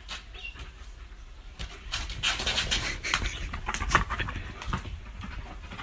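A dog panting in quick, irregular noisy breaths close to the microphone.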